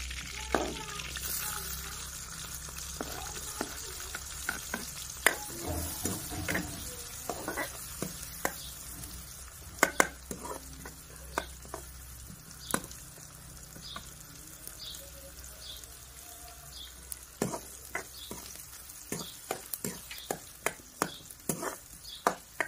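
Chopped onion and tomato sizzling as they fry in hot oil with cumin and mustard seeds in a kadhai over a wood fire, the start of the tadka for a masala gravy. A steel ladle stirs them, with scattered sharp clicks against the pan.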